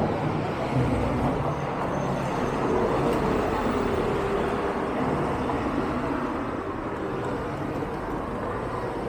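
Steady city street traffic noise: motor vehicles running and passing, with a low engine hum most prominent in the first second or so.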